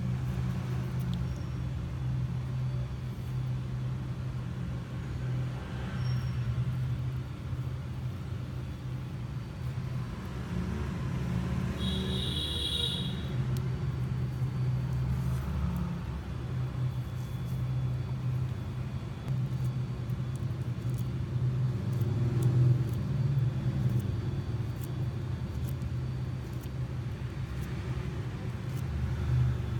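A steady low rumble throughout, with a brief high-pitched tone about twelve seconds in.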